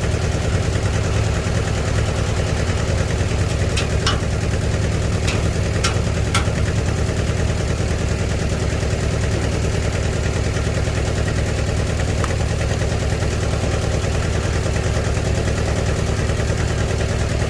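Tractor engine idling steadily, fitted with a newly repaired, working muffler. A few sharp metal knocks come about four and six seconds in.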